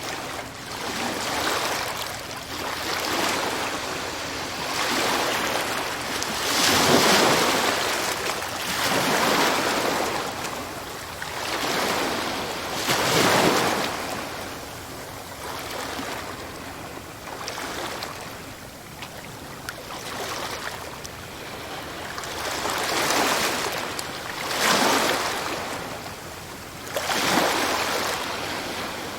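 Sea waves breaking and washing up the shore, a rushing noise that swells and fades in repeated surges every few seconds, some surges much stronger than others.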